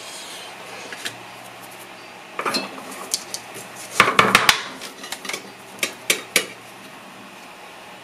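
Hand tools clinking and knocking against each other and the workbench as they are picked up and handled. The clicks are scattered, with a quick cluster of clinks about four seconds in.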